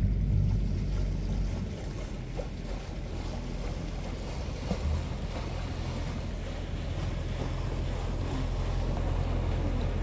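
Steady low engine drone of a passenger motor ship passing close to the shore, with wind and water noise.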